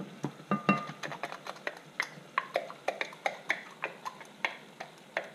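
Irregular light clinks and taps of kitchen utensils, several a second, some with a brief ring.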